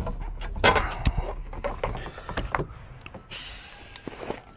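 Clicks and knocks from a locksmith's tools working on a locked car door, then a hiss lasting about a second near the end.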